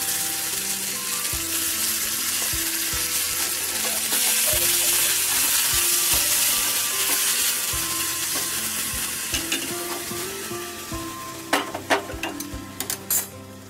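Grated coconut sizzling in hot oil and ghee with dried red chillies and tempering spices, stirred around the pan. The hiss thins near the end, where a few sharp metal clicks of a spoon come in quick succession.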